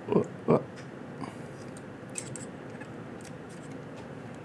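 Two short, loud, low sounds in the first half second, then faint clicks and scrapes of a small screwdriver tip against metal as it pries a CCD sensor chip out of its socket.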